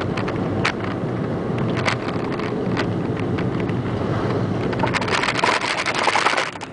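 Car driving along a road, heard from inside the cabin: steady engine and road rumble with scattered light clicks. Near the end a louder rushing hiss swells for about a second and a half, then drops away.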